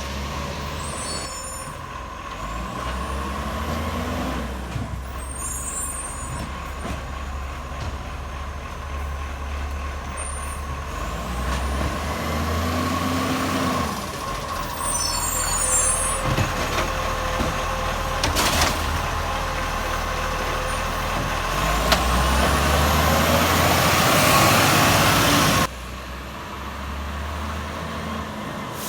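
Acco garbage truck's engine running loud through a leaking exhaust, with short air-brake hisses several times. The engine grows louder in the last third and then drops off suddenly.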